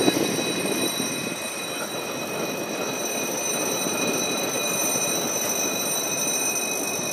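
Trans-Siberian passenger train running along the track: a steady rolling noise with several steady high-pitched tones above it.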